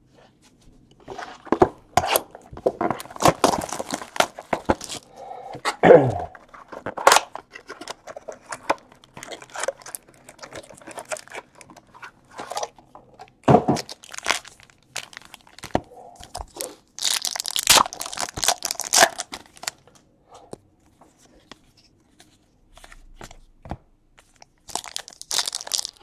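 A cardboard trading-card box and its wrapped pack being opened by hand: irregular cardboard crunches and rips, then crinkling and tearing of the pack wrapper. The longest, loudest tear comes about two-thirds of the way through, with more tearing near the end.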